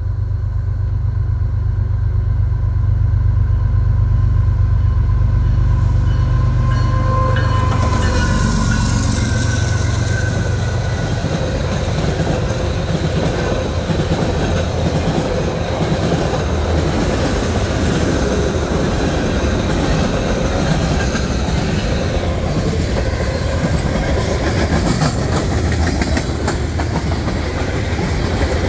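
CSX manifest freight train passing close by. A deep low rumble builds over the first several seconds, then from about eight seconds in a long string of tank cars rolls past with a steady rolling roar and clatter of wheels on the rails.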